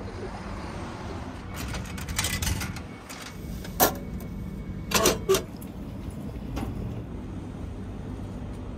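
Vending machines running with a steady low hum, with a short clatter about two seconds in and sharp clicks and knocks of the machines' buttons and delivery hatch around the middle.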